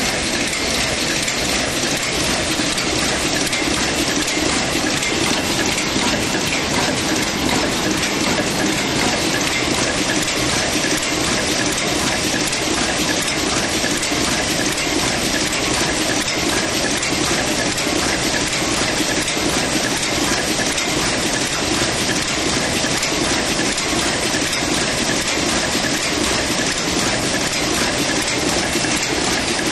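Automatic adhesive plastic bag-making machine running at high speed: a loud, dense, steady mechanical noise of moving parts and conveyor, with no distinct beat.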